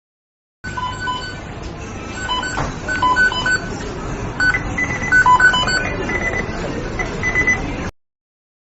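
The McDonald's kitchen beeping sound effect: short electronic beeps at a few different pitches from the kitchen equipment, overlapping in irregular patterns over a steady background noise. It starts suddenly under a second in and cuts off near the end.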